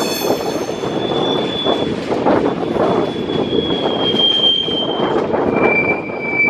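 Passenger coach wheels squealing on curved track as the train pulls out of the station: a run of high, thin squeals at shifting pitch, dropping lower near the end, over the steady rumble of wheels on rail with scattered knocks from joints and pointwork.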